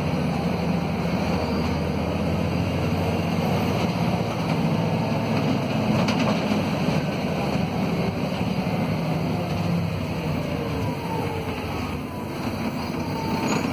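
Volvo B7RLE city bus's D7C six-cylinder diesel engine running steadily under way, heard from inside the passenger cabin with road and body noise, easing off slightly near the end.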